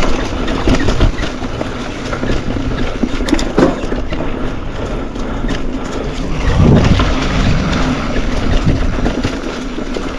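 Mountain bike rolling fast down a dirt trail: wind rushing over the microphone, mixed with the tyres and bike rumbling and knocking over rough ground.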